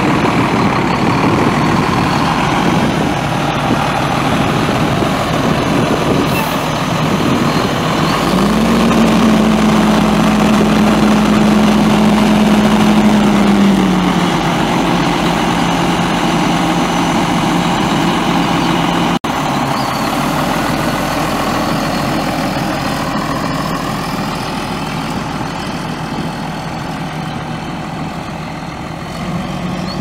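Cummins ISM 10.8-litre inline-six turbo diesel in a Blue Bird LTC40 coach bus, running steadily. Its speed steps up about eight seconds in, holds for several seconds, then settles back down.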